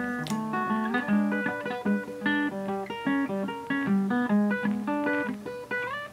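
Background music: a plucked guitar playing a quick melody of single picked notes.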